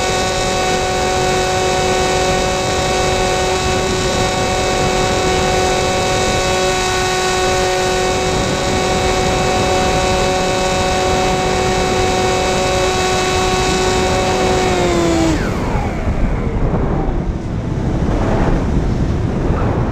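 Electric motor and propeller of a Sky Eye RC FPV plane, heard from its onboard camera, whining at a steady high pitch under constant throttle. About fifteen seconds in the pitch drops sharply as the throttle is cut, leaving wind rushing over the airframe and microphone as the plane dives.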